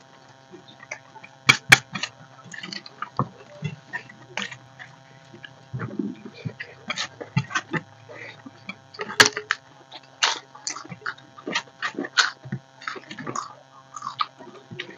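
Two people eating rice and curry with their hands from steel plates: irregular wet smacks and chewing, with clicks of fingers and food against the plates. The sharpest clicks come about one and a half seconds in and again about nine seconds in.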